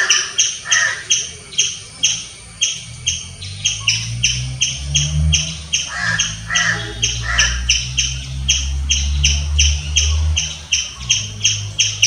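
Striped squirrel chirping steadily and rapidly, about three or four sharp, high chirps a second, with a low rumble underneath in the middle.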